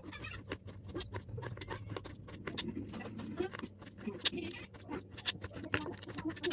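Kitchen knife slicing shallots on a plastic cutting board: quick, uneven taps of the blade striking the board, a few a second.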